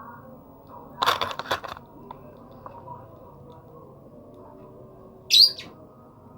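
Lovebird calling: a rapid, harsh burst of squawks about a second in, then a single short, shrill high call near the end.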